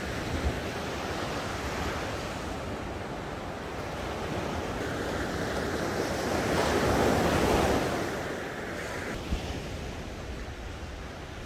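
Sea surf breaking on a sandy beach, a steady wash that swells to its loudest about seven seconds in and then eases, with wind buffeting the microphone.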